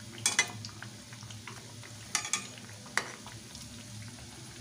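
A metal spatula clinks against a kadai as tikiya are turned in hot oil: two clicks just after the start, two more about two seconds in, and one at about three seconds. Gentle frying in the oil goes on underneath.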